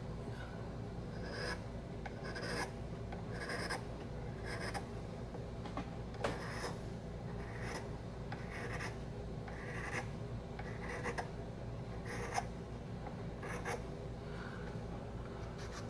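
Flat hand file scraping across a tobacco pipe's stem and briar shank in short strokes, about one a second, filing down a small ridge so the stem sits flush with the shank.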